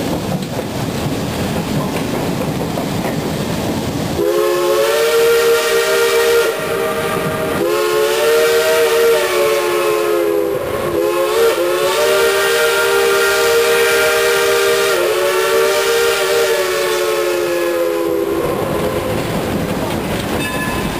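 Steam locomotive's chime whistle sounding several notes at once in a long blast of about fourteen seconds, starting about four seconds in, with a few brief dips and breaks. Underneath and around it, the train's running noise and wind on the microphone.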